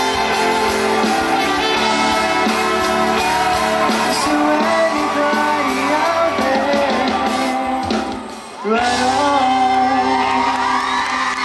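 Live pop band, with electric guitar and bass, playing while a male singer sings into a microphone. The music briefly thins out about eight seconds in, then comes back in full.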